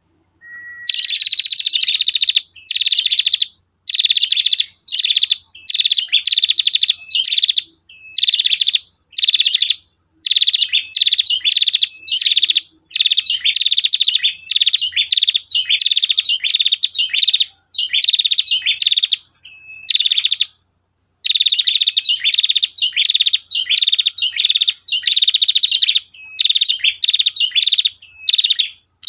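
Female prinia (prenjak) giving its long 'tir' call: rapid buzzy, ticking trills, each about half a second, repeated in quick succession with one short pause about two-thirds of the way through.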